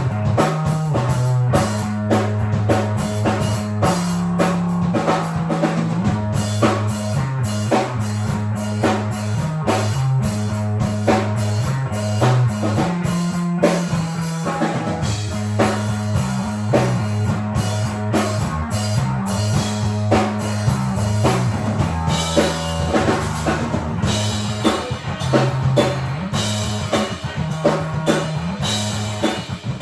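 Demo recording of a rock song: a drum kit keeps a steady beat over a bass line that steps between notes, with guitar.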